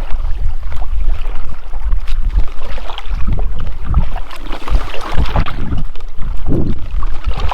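Wind buffeting the microphone in a heavy, steady rumble, over irregular water splashing from a kayak being paddled.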